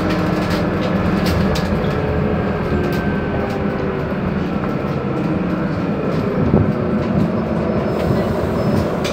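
Inside a moving Scania Citywide LF articulated city bus: a steady engine and drivetrain hum mixed with road noise, with scattered light rattles and clicks from the cabin fittings.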